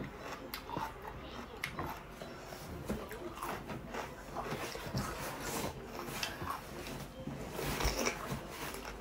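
Close-miked chewing of raw cucumber: irregular crisp crunching clicks, with a louder crunch of a fresh bite into the cucumber near the end.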